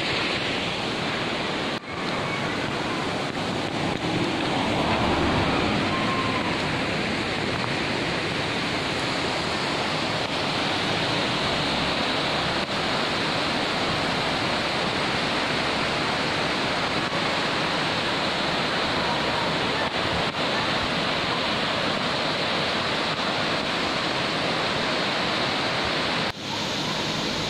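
Steady rush of a tall tiered waterfall, Ravana Falls, water pouring down its rock steps; the sound briefly drops out about two seconds in and again near the end.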